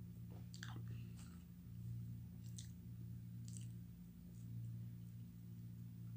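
Faint eating sounds, a sip from a mug and soft chewing with a few short mouth clicks, mostly in the first few seconds, over a steady low hum.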